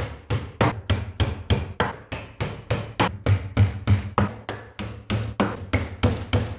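A hammer drives small nails through the thin fibreboard back panel of a chest of drawers, with a steady run of strikes, about three a second.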